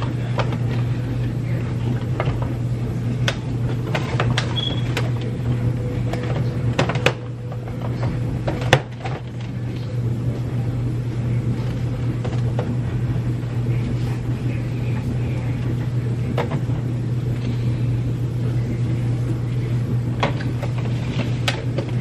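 A steady low hum runs throughout, with scattered light clicks and taps of boxed bar soaps being handled and set into a clear plastic organizer. The sharpest tap comes about nine seconds in.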